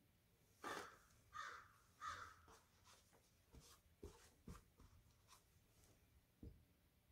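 Faint workbench handling noises: three short scratchy sounds within the first two seconds, then several light knocks as parts are moved about on the bench.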